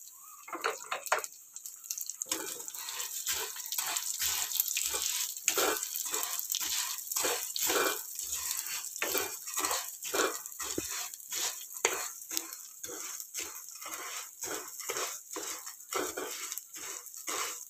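A spatula stirs and turns vermicelli roasting in ghee in a nonstick pan. The strokes scrape and rustle about twice a second over a light sizzle.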